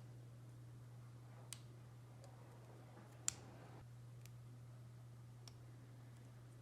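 Sparse, sharp clicks of LEGO Technic plastic pieces being handled and pressed together, about five in all, the loudest a little over three seconds in, over a faint steady low hum.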